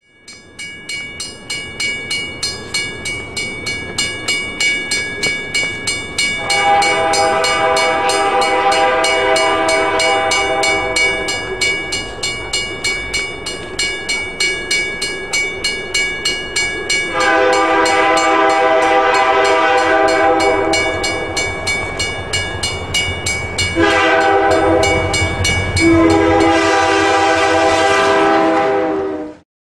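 Diesel locomotive's multi-note air horn sounding the grade-crossing signal: long, long, short, long. A bell rings steadily about twice a second throughout. The sound cuts off abruptly at the end.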